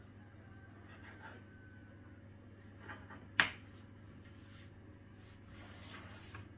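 Kitchen knife cutting a rolled dough log on a wooden cutting board: soft scrapes of the blade, then a sharp knock of the knife on the board about three and a half seconds in. Near the end comes a rubbing slide as the board is shifted across the plastic tablecloth.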